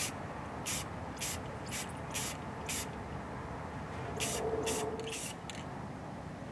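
Aerosol spray paint can spraying in short hissing bursts, about ten of them, in two runs with a pause of about a second and a half near the middle.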